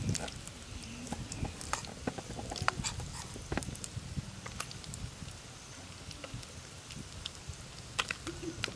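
Battered small fish frying in oil in a wok over a wood fire, with scattered sharp pops and crackles.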